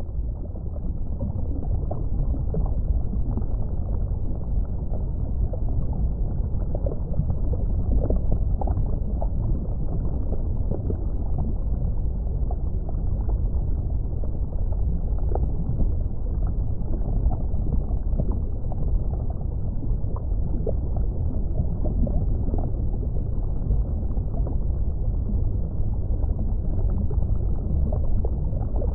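Muffled underwater water ambience: a steady low rumble with faint scattered clicks, fading in over the first second.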